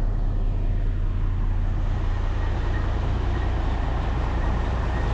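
Grain truck engine running with a steady low rumble.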